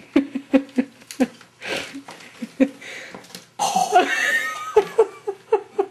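A person laughing in short, breathy bursts, with a wheezing, gasping laugh a little past halfway.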